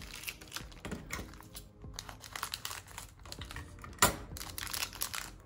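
Plastic parts bags crinkling and rustling as model-kit parts are handled, in short irregular bursts, with one sharp tap about four seconds in.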